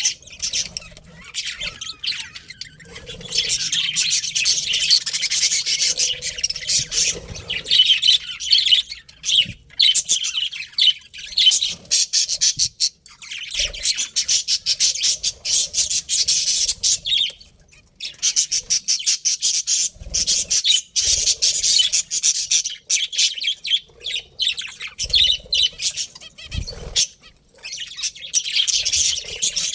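A flock of budgerigars chattering and chirping continuously in rapid, high-pitched twitters, with brief lulls, and a few soft low thumps.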